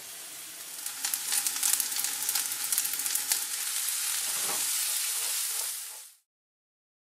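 Soybeans and chirimen jako (dried baby sardines) sizzling in sesame oil in a frying pan, with many sharp crackles and pops as they are stirred with a plastic spatula. The sizzle cuts off suddenly near the end.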